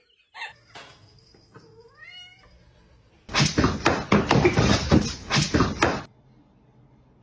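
A cat meows once with a bending, rising pitch. Then come about three seconds of loud, harsh cat noise from animals scuffling, which stops abruptly.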